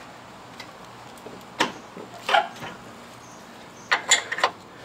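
Metal clicks and knocks from a bolt and the front suspension parts being handled as the bolt is worked back into the lower A-arm: two or three scattered clicks, then a quick cluster of clinks near the end.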